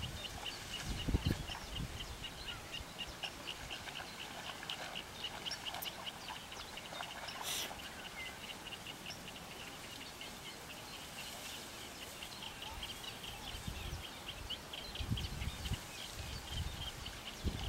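Steady run of short, high chirps, about four a second, over a faint outdoor hiss, with a few soft low bumps about a second in and again in the last few seconds.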